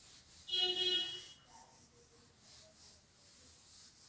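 Cloth duster wiping a whiteboard: one short, high squeak of the cloth dragging on the board surface about half a second in, lasting under a second, then only faint traces of rubbing.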